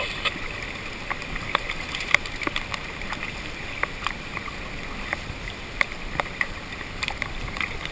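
Hail ticking sharply and irregularly on a GoPro's plastic waterproof case, a few hits a second, over a steady hiss that the case dulls.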